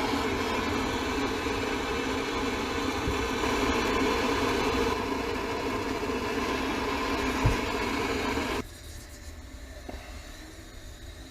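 Gas soldering torch flame running steadily on a copper pipe joint, then shut off abruptly about eight and a half seconds in. A single short knock comes just before the torch goes off.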